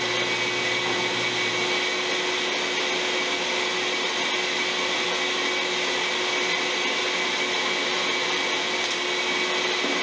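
King bandsaw running free, no cut being made, together with the rushing airflow of the vacuum dust extraction hooked to it: a steady whoosh with a constant hum and whine. A low hum drops out about two seconds in.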